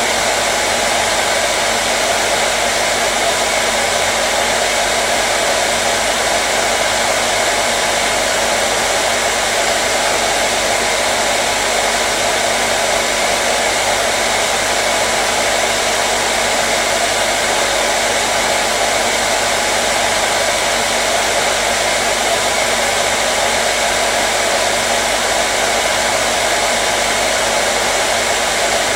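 Hair dryer running continuously: a steady, even rush of blown air with a faint motor hum, unchanging in level.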